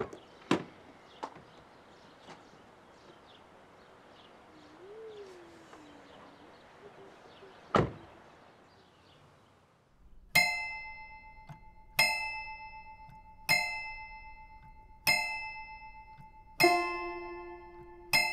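Small clicks of a car door being opened, then a car door shutting with one loud thud about eight seconds in. A couple of seconds later slow music starts, single plucked or piano-like notes ringing out about every second and a half.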